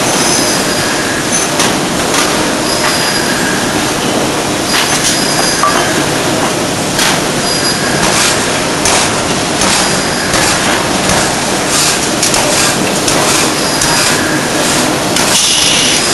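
D51 ring rolling mill rolling a red-hot forged ring: loud, steady machine noise, with scattered metallic knocks and brief high squeals as the rolls work the ring.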